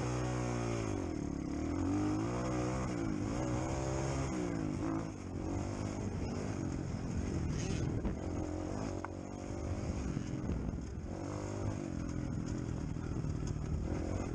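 Dirt bike engine under way, revving up and easing off again and again as the throttle opens and closes, with a drop in revs about five seconds in and again near the middle.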